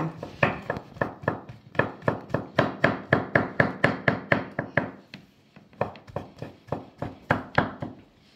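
Chef's knife chopping mushrooms on a wooden cutting board: a steady run of knocks about four a second, a short pause about five seconds in, then a few more chops that stop just before the end.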